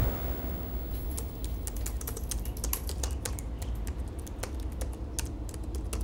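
Typing on a laptop keyboard: quick, irregular key clicks, several a second, starting about a second in, over a low steady hum.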